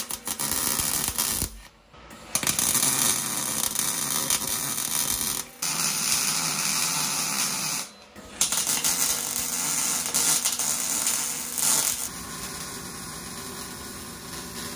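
MIG welder arc crackling and buzzing as it tack-welds and then welds a steel exhaust flange onto a muffler-delete exhaust pipe, in several bursts of a few seconds with short breaks between, going quieter about twelve seconds in.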